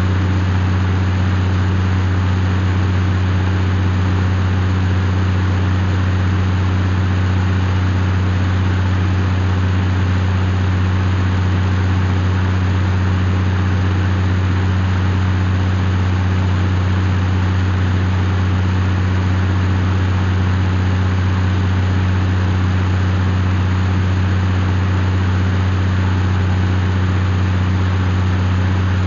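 Case IH CVX 150 tractor engine running at a constant speed: a loud, unchanging low drone.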